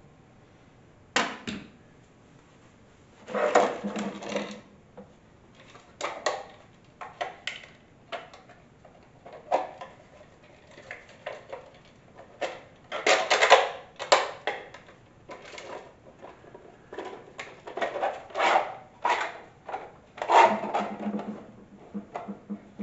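A box of miniatures being handled and slid open: a string of irregular clicks, knocks and rattles.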